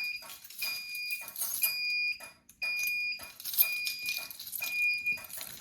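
Alarm sounder on a fire alarm and carbon monoxide system beeping a high tone about once a second, each beep about half a second long, during a carbon monoxide alarm test.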